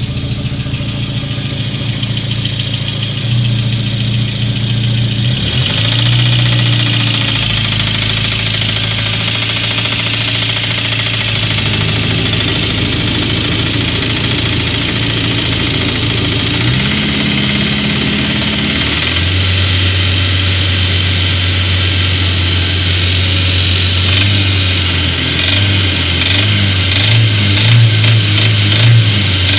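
Car engine running after new piston rings and replacement connecting-rod bearings, with a knock that the owner suspects may be the connecting rods. Its speed shifts a few times, and near the end it is revved in short blips.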